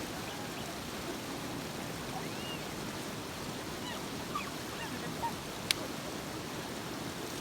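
Steady rush of a river flowing over rocks, with a few faint short calls over it and one sharp click about two-thirds of the way through.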